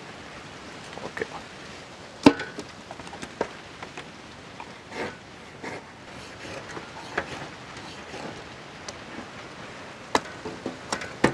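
Knives scoring pearl spot fish on an aluminium tray, with scattered sharp knocks and clatters of knife blades and fish against the metal. The loudest knock comes about two seconds in, and a cluster of them comes near the end.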